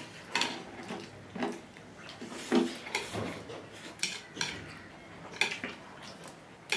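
Chopsticks clicking and tapping against dishes in irregular, scattered taps while eating.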